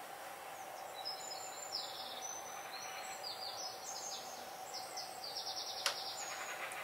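Faint birds chirping in quick, high-pitched runs of notes over a steady hiss and a faint steady tone. A single sharp click comes near the end.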